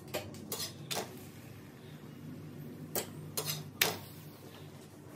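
A steel spatula clicking and tapping against an iron tawa as a paratha is pressed and turned on it: a handful of light, scattered clicks, with a small cluster a little past the middle.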